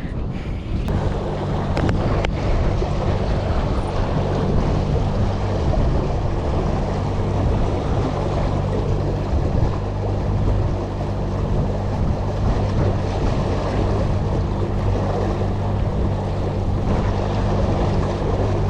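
Motorboat engine running steadily under way, coming up about a second in, with wind and water rushing past the hull.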